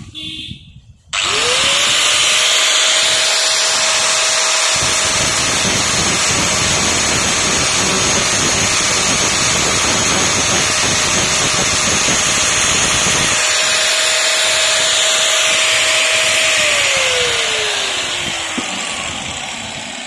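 Angle grinder switched on about a second in, spinning up to a steady whine and grinding steel on a ceiling fan stator's shaft, taking down the high spot where the new bush sticks. Near the end it is switched off and its pitch falls as it spins down.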